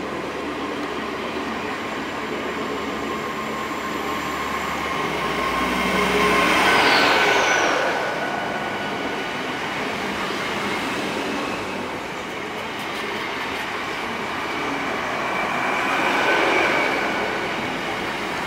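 Great Western Railway passenger train running past along the platform, its wheels and running gear rumbling steadily with high squealing tones. The sound swells about seven seconds in, where a high tone falls in pitch, and swells again about sixteen seconds in.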